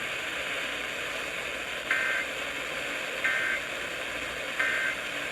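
Three short Emergency Alert System end-of-message data bursts, the two-tone digital warble that closes a weather-radio alert. Each lasts about a third of a second, they come a little over a second apart, and they sit over steady radio static.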